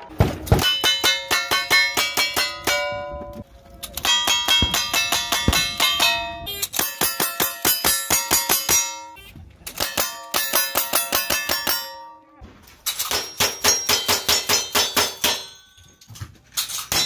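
Lever-action rifles fired in rapid strings of about five shots a second, each shot followed by the ringing clang of a bullet hitting a steel target. Several strings follow one another, separated by brief gaps.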